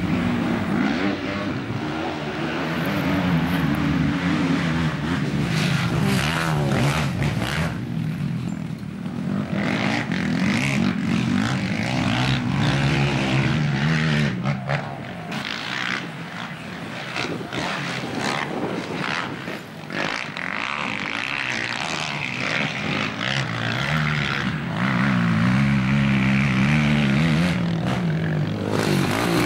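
Quad bike engines racing on a dirt track, the engine note revving up and down as the quads pass. It eases off about halfway through and builds again near the end.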